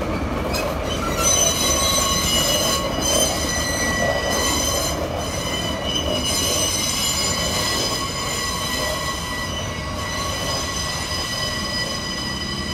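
Wheel flange squeal from a slow diesel-hauled train rounding a tight curve: several steady high-pitched squealing tones over the low running of the diesel locomotives.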